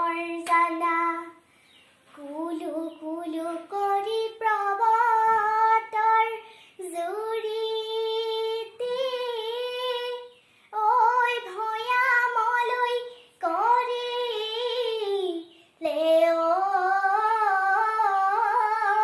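A young girl singing a Bihu naam, an Assamese Bihu folk song, solo and without accompaniment, in phrases of two to three seconds with gliding, ornamented pitch and short pauses for breath.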